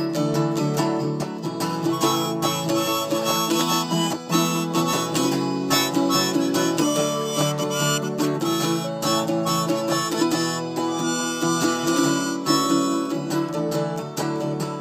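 Instrumental break in a country-folk song: acoustic guitars strumming a steady rhythm under a harmonica playing the melody with long held notes.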